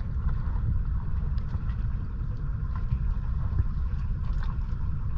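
Wind buffeting the microphone in a steady, flickering low rumble, with faint scattered clicks.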